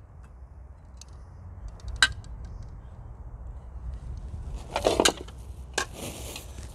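Steel armour plates (14-gauge tassets) clinking and knocking as they are handled out of their box: a sharp click about two seconds in and a louder clatter about five seconds in. Plastic wrapping rustles near the end, over a steady low rumble.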